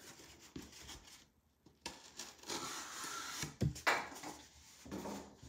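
Foam board being handled at a table: rubbing and scraping through the middle, then a sharp knock about two-thirds of the way through.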